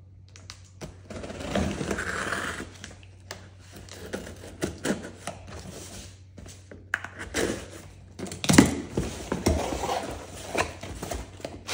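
Scissors slicing and scraping along packing tape on a cardboard shipping box, with scattered clicks and handling knocks, then the box flaps pulled open and paper packing rustled. A sharp knock about two-thirds of the way through is the loudest sound.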